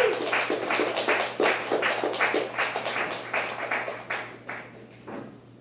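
Small audience applauding, the claps thinning out and stopping about five seconds in.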